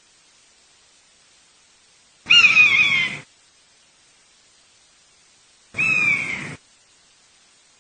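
Buzzard giving two mewing calls a few seconds apart, each about a second long and falling in pitch.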